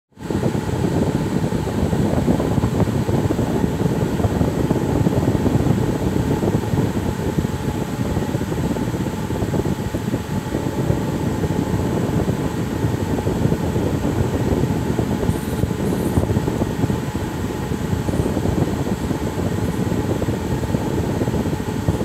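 Steady, dense rushing noise, strongest in the low and middle range, unbroken throughout, with a faint high chirp about fifteen seconds in.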